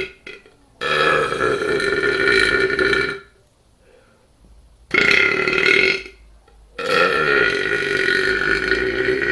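A man belching loudly on command, forcing out swallowed air: three burps, the first long at about two and a half seconds, the second short at about a second, and the third long again.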